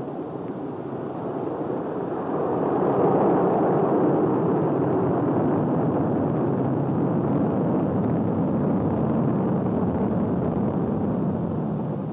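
Minuteman ICBM's solid-fuel rocket motor at launch: a steady, dense rumble that swells louder a couple of seconds in and cuts off suddenly at the end.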